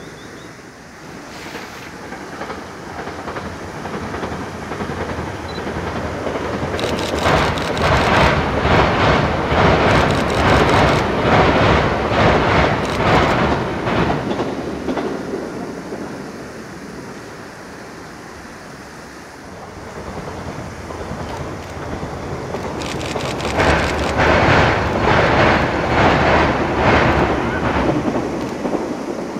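Train passing over a steel girder railway bridge, twice: each time a deep rumble builds to its loudest with a rapid rhythmic clatter of wheels over rail joints, then fades away.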